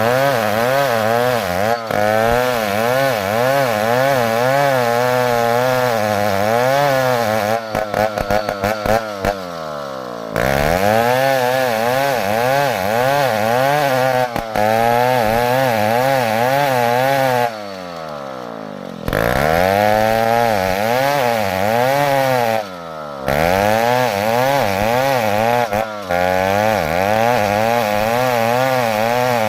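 Two-stroke chainsaw engine running at high revs while sawing ironwood, its pitch wavering as the load changes. Twice the revs sink away and then climb back up, and once near the end they dip briefly.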